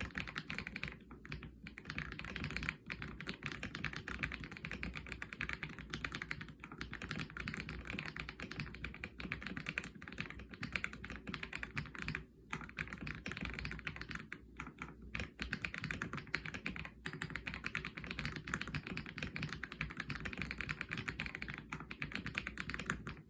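Fast continuous typing on an Aula F87 Pro mechanical keyboard with LEOBOG Seiya switches: a dense stream of keystrokes, broken by a few short pauses.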